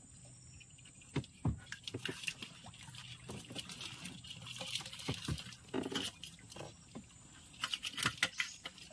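Water dripping and splashing with scattered knocks and clicks on a small wooden boat while a baited crab line is hauled in, the clicks coming in clusters.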